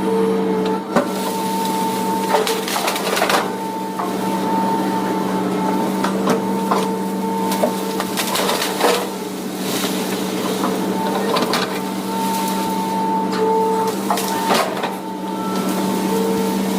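Excavator running steadily with a hum and a higher whine that comes and goes, over irregular cracks, snaps and knocks of wood and brush being crushed and pushed while clearing land.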